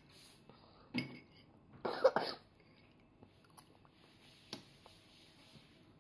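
A short cough about two seconds in, with a smaller one about a second in, then a few faint clicks of a metal spoon against a bowl.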